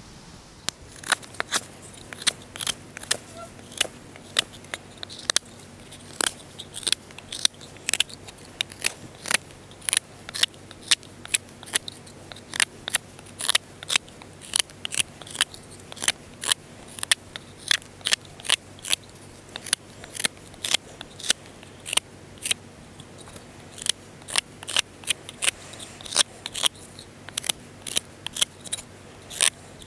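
A large fixed-blade knife carving a small piece of wood in repeated short, sharp cuts, each one shaving off a sliver. The cuts come about two a second, with a few short pauses.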